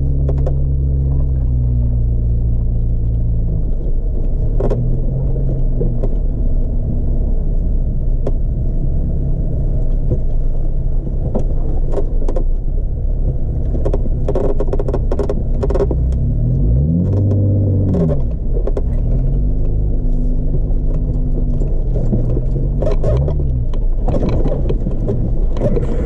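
Off-road 4x4's engine running at low revs over a rough trail, its pitch rising and falling with the throttle, one clear rev up and back down about two-thirds of the way through. Frequent knocks and rattles come through over the engine, more of them in the second half.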